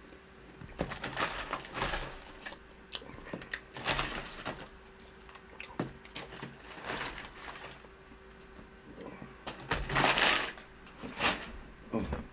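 Close-up eating sounds: chewing and crunching of food in irregular noisy bursts, the loudest about ten seconds in, over a faint steady hum.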